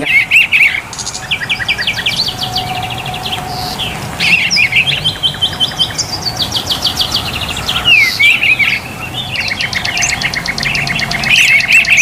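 Songbirds singing in fast trilled phrases of short repeated chirps, with brief pauses between phrases.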